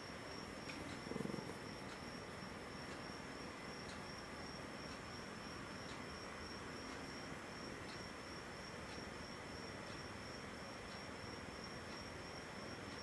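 Steady high-pitched trilling of crickets, with a faint tick about once a second and a brief low sound about a second in.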